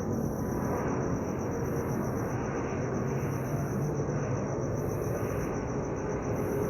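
Boeing 737 MAX 8 airliner's CFM LEAP-1B turbofan engines making a steady, even jet noise as the plane arrives, with a thin high-pitched whine above it.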